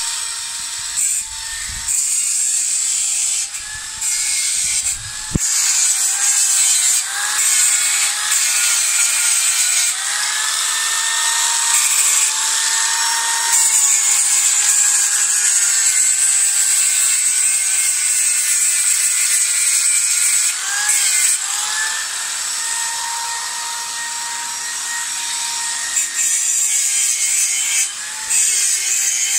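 Handheld electric angle grinder running under load against a steel square-tube frame, a steady whine that wavers in pitch as the disc bites, over a hiss of grinding. It eases off briefly a few times.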